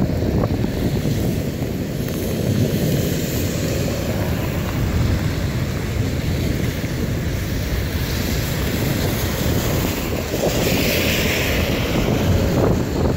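Storm wind buffeting the microphone in a steady low rumble, with a brief rise of hiss about ten seconds in.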